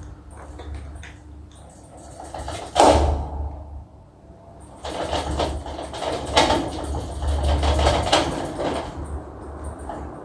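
Ceiling fan running with a low, steady motor hum. A sharp knock comes about three seconds in, and a burst of rapid clicking and rattling follows from about five to nine seconds in.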